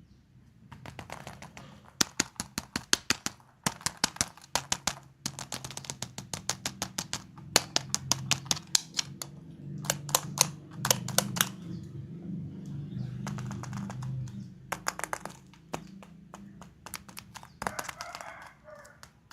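Hands working surprise-egg and toy packaging: several quick runs of small, sharp clicks and taps, about eight to ten a second, with short pauses between them.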